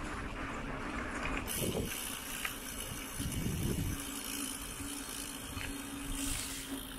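Mountain bike being ridden: rolling tyre noise and light rattling from the bike. A steady low hum comes in about halfway through.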